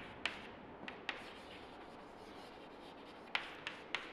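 Chalk writing on a chalkboard: a faint scratching, with sharp taps as the chalk strikes the board, a few in the first second and three in quick succession near the end.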